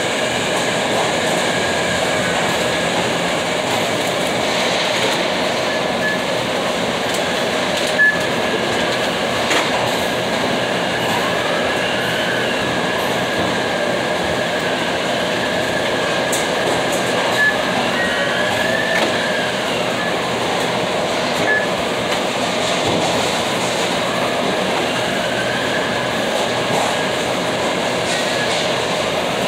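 Steady loud machinery running, with a constant high tone, occasional short squeals and sliding whines, and a few sharp clicks or knocks.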